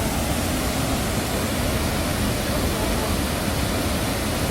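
Cheonjiyeon Falls, a tall waterfall, pouring into its plunge pool: a steady, tremendous rush of falling water.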